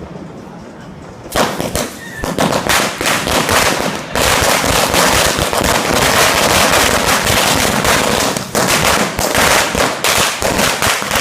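Firecrackers bursting in a rapid, dense run of sharp bangs, typical of a string of crackers going off. It starts about a second and a half in and carries on with hardly a break.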